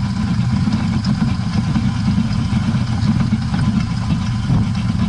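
IZh 21251 Kombi running in gear on jacks, its rear wheels spinning in the air, with a steady low rumble from the rear axle that the owner takes for a worn final drive (differential) with large backlash in the main gear pair.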